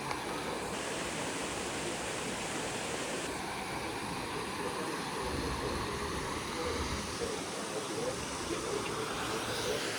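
Steady rushing of a severe thunderstorm's wind and heavy rain, with some low rumbling about halfway through.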